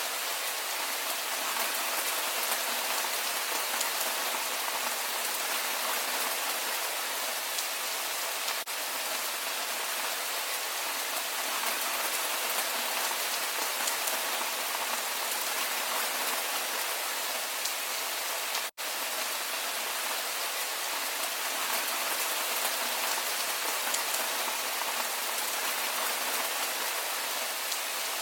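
Steady, dense rainfall with fine patter of drops on surfaces. The sound cuts out for an instant about two-thirds of the way through, then carries on unchanged.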